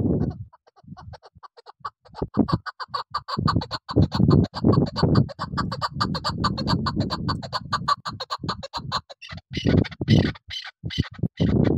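Chukar partridge calling: a long, fast run of repeated clucking chuck notes from about two seconds in, breaking into shorter bursts of notes near the end.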